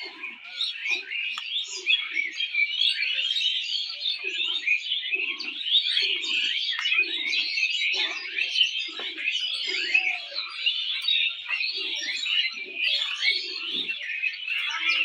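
A busy chorus of birds chirping without a break. Under it come short, soft squirts of milk into a steel bucket, about two a second, as a cow is milked by hand, with a pause a few seconds in.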